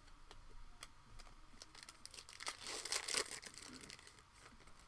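Foil trading-card pack wrapper being torn open and crinkled, loudest about two and a half to three seconds in, with light clicks of cards being handled before it.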